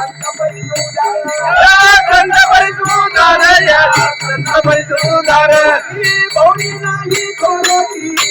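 An elderly woman singing a song, her voice wavering strongly in pitch, over a musical accompaniment with a steady repeating low beat.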